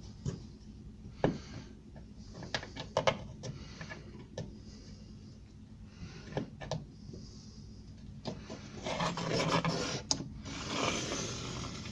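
An MDF board and tools being handled: scattered light knocks and clicks, then two stretches of scraping, rubbing wood-on-wood about nine and ten and a half seconds in.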